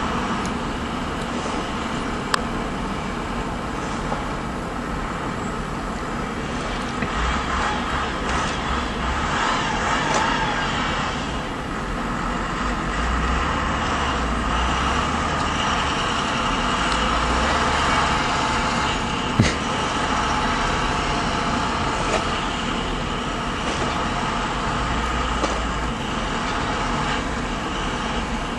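Heavy truck engines running, the low rumble rising and falling, as a tow truck tries to pull a stuck truck out of the snow. There are two short, sharp knocks, one about two seconds in and one about two-thirds of the way through.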